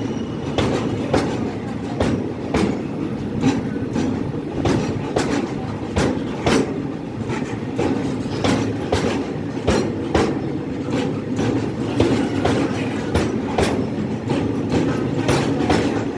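Train running on the track: a steady rumble of wheels with repeated clickety-clack as the wheels cross rail joints, about one or two clacks a second.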